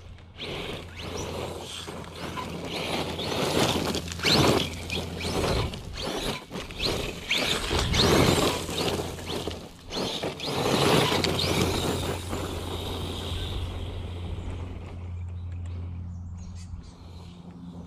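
ZD Racing DBX-10 brushless RC buggy driving, its motor and tyres surging loud and fading in turn, loudest around four, eight and eleven seconds in, with scattered clicks. From about thirteen seconds it settles to a quieter steady low hum.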